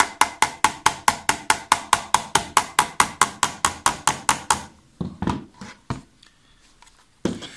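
Pliers rapidly tapping a part into a BMW door handle's plastic housing: sharp, even taps, about four to five a second, that stop about four and a half seconds in. A couple of heavier knocks follow as the pliers are set down on the desk.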